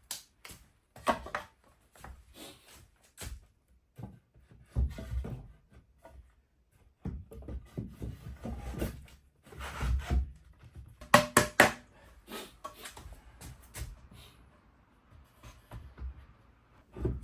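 Irregular knocks, taps and clatter of wooden pieces being handled and fitted, with low thuds between and a cluster of sharp taps a little past the middle.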